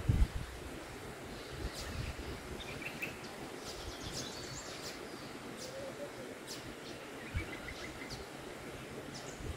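Outdoor nature ambience: wind buffeting the microphone with a low rumble, strongest right at the start, and a few short, faint bird chirps over it.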